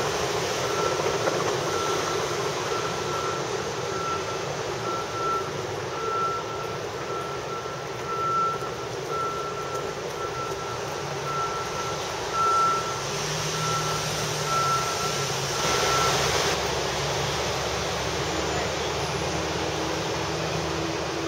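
Steady hiss of rain on a wet city street, with an electronic beep repeating about twice a second that stops about three quarters of the way through.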